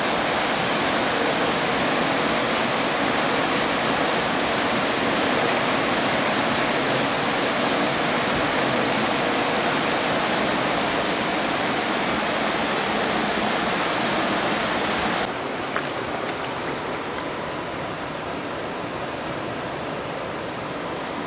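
Floodwater rushing and churning down a flooded street in a steady, loud torrent. About three-quarters of the way through, the sound drops suddenly to a quieter, duller rush of water.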